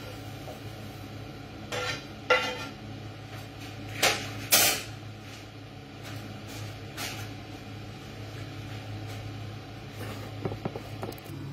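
Clatter of dishes and metal kitchenware: four sharp knocks and clinks in two pairs, around two and four seconds in, then a few fainter ones near the end, over a steady low hum.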